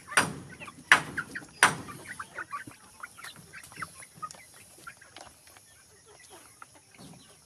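A flock of chickens clucking softly and pecking at feed, with a few loud sharp taps in the first two seconds; the small clicks and calls thin out and grow quieter toward the end.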